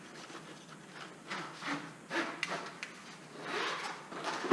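Handling noise as a four-foot LED tube is unpacked and handled: a few short rubbing scrapes and light knocks of cardboard and plastic, the fullest near the end.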